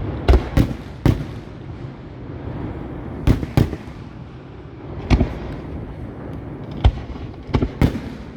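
Professional (category 4) display fireworks: shells bursting in about nine sharp bangs at irregular intervals, some in quick pairs.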